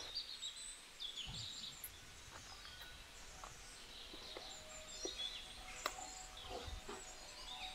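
Faint bird chirps over a quiet rural background, with a few light scattered clicks.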